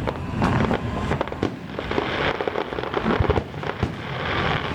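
Aerial fireworks bursting: a rapid, irregular run of bangs and crackling, one after another with no pause.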